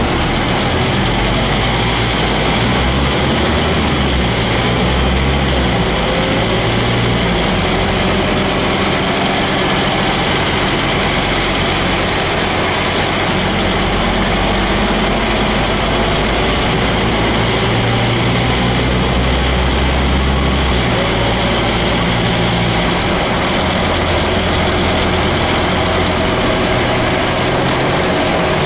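Scania N310UA articulated bus's diesel engine running as the bus is driven, heard inside the cabin from the back seats, with road and body noise; the engine note shifts up and down in steps several times.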